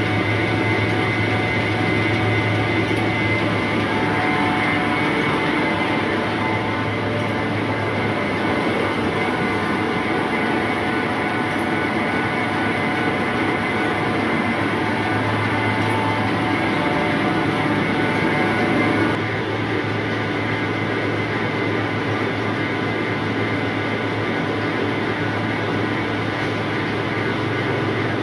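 Rice seed sorting machine running: its motor, blower and rotating drum sieve make a steady mechanical hum and rumble, dropping a little in level about two-thirds of the way through.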